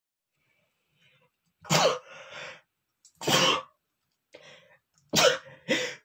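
A man sneezing four times, the last two in quick succession, with softer breathy sounds between the sneezes.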